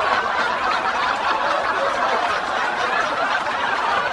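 Several people laughing and chuckling together, steady throughout.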